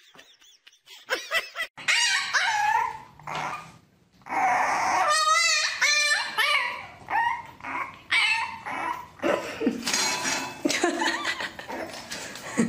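A puppy whining and yipping in a run of short, high cries that bend up and down, some of them wavering, starting about two seconds in.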